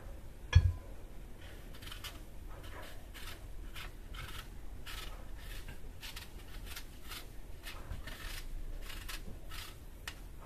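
Knife paring the skin off a sour green apple: a run of short, crisp scraping strokes, one after another. A single thump comes about half a second in.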